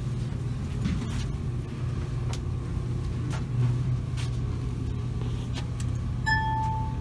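Steady low hum of indoor room noise, with a few faint clicks and a short electronic beep near the end.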